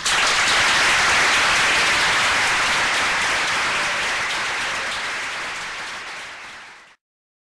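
Audience applause, many people clapping together, slowly fading and then cutting off about seven seconds in.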